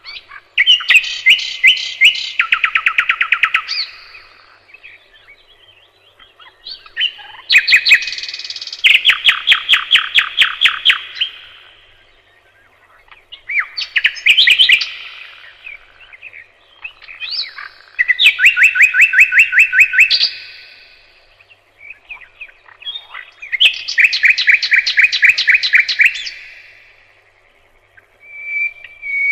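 A nightingale singing: about five loud phrases of rapidly repeated notes, each lasting a few seconds, separated by short pauses, with another phrase starting near the end.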